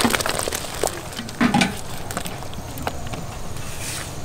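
Chopped shallots, garlic and lemongrass tipped from a foil tray into a large aluminium pot of hot broth, splashing in at the start, then a steady bubbling hiss from the pot with scattered small clicks. A brief louder thud about a second and a half in.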